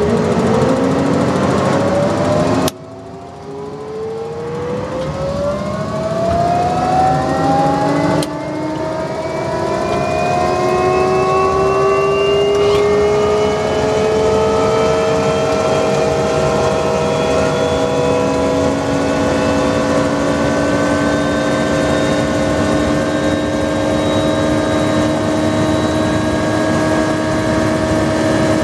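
Bell 429 helicopter's Pratt & Whitney Canada PW207D1 turboshaft engine starting and spooling up: a whine of several tones that rises steadily in pitch and levels off as the engine comes up to speed. The loudness drops suddenly twice in the first eight seconds.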